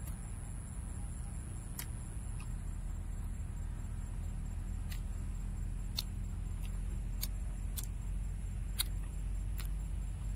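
A person chewing a mouthful of grilled carrot and meat, with scattered sharp mouth clicks, over a steady low rumble and a faint high steady whine.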